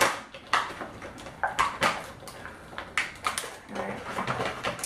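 Clear plastic packaging crinkling and crackling in hands in irregular sharp bursts as a toy figure is unwrapped.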